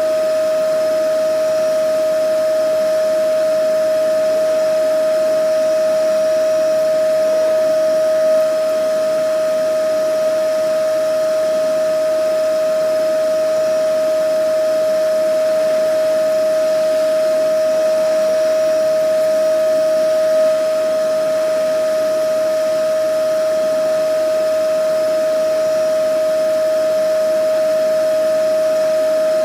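Vacuum cleaner running steadily: a constant, unchanging motor whine over a rush of air.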